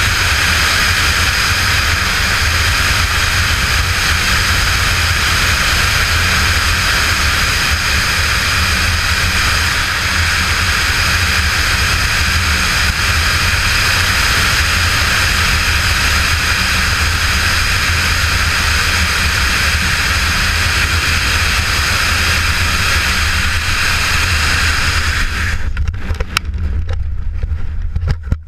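Loud, steady rush of wind on the camera's microphone during wingsuit flight. It drops off suddenly near the end as the parachute opens, leaving a low wind rumble and a few sharp snaps.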